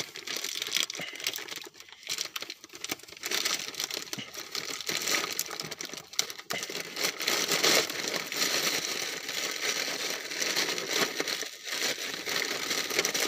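Plastic mailer bag crinkling and rustling as it is pulled open and handled, in an irregular run with a couple of brief pauses.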